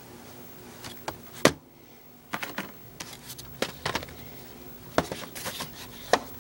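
DVD box set and its plastic cases being handled: a scatter of sharp clicks and taps, the loudest about one and a half seconds in.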